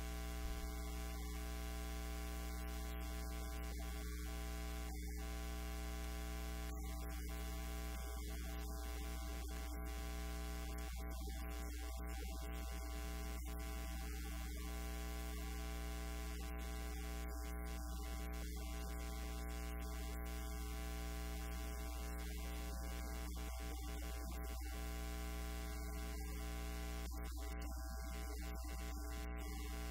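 Steady electrical mains hum with a stack of steady higher overtones, unchanging throughout: a fault in the recording's audio feed.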